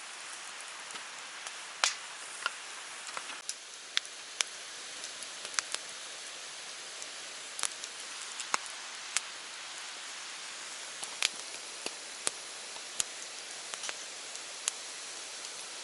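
Steady rushing hiss of a flowing stream, with scattered sharp crackles and clicks over it.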